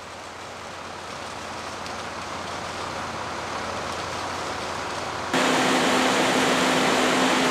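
A steady rushing noise, then an abrupt jump about five seconds in to the loud hiss of a fire hose nozzle spraying a water stream, over a steady engine hum.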